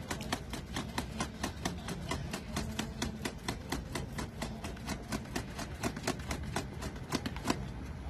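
Burning charcoal in a small grill crackling, a rapid, irregular run of sharp pops that stops shortly before the end.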